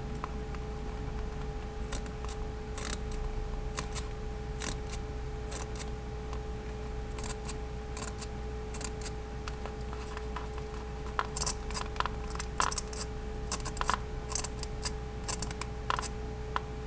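Light clicks and taps from a miniature pistol magazine's small metal parts being handled and prodded with a pencil tip. The clicks are scattered at first and come thicker and louder in the second half, over a steady faint hum.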